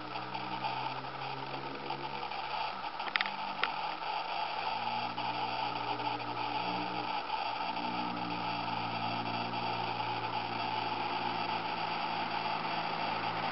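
Honda Civic with a Fujitsubo aftermarket exhaust approaching from around a bend, its exhaust note holding steady pitches that shift at about three and seven seconds in. A steady hiss runs underneath, with two sharp clicks about three seconds in.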